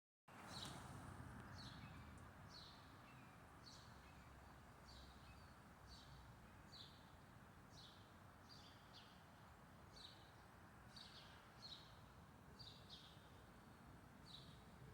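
Faint, short, high-pitched bird calls, each falling in pitch, repeated about once or twice a second over a steady low background hiss and rumble.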